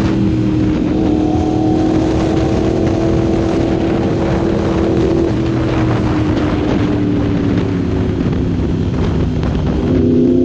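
A 2016 Yamaha R1's crossplane inline-four, fitted with an Austin Racing aftermarket exhaust, heard from the rider's seat. Its note sinks slowly as the bike rolls off and slows, with wind rush on the microphone, then the revs jump and climb near the end.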